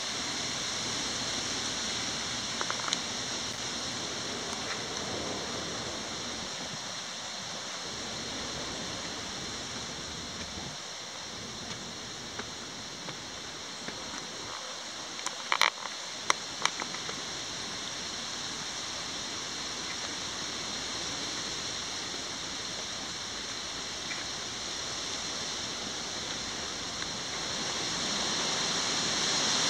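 Steady outdoor background hiss with a constant high-pitched hum, broken by a few sharp clicks about halfway through.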